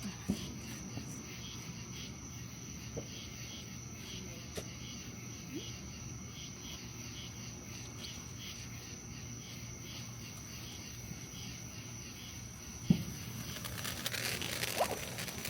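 Crickets chirping steadily, about two chirps a second over a constant high trill. About thirteen seconds in a backyard firework goes off with a sharp pop and then a hiss that grows louder.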